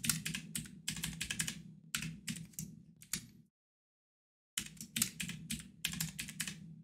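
Typing on a computer keyboard: rapid runs of key clicks, a pause of about a second a little past the middle, then more typing.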